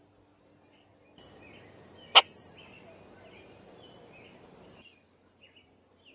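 Small birds chirping, with a patch of hiss that switches on and off abruptly and a single sharp click about two seconds in, the loudest sound.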